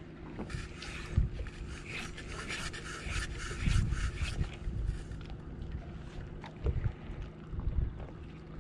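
Wind gusting on the microphone, heard as low thumps about a second in, around the middle and again near the end, with scratchy handling noise from a fishing rod and reel being worked. A faint steady low hum runs underneath.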